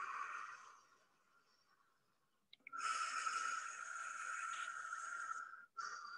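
A woman blowing out long breaths through pursed lips with a steady hiss. One breath tails off about a second in, another lasts about three seconds from near the middle, and a third begins near the end.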